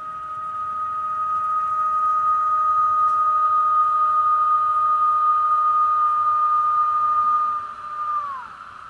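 Electric motor of an H0 Märklin model locomotive whining with a steady high tone, growing louder over the first two seconds, then dropping quickly in pitch and dying away near the end as the motor runs down.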